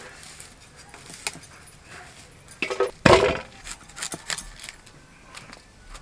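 Cauliflower being cut into florets against a boti blade: a run of crisp snaps and crunches as the stalks split, the loudest about three seconds in.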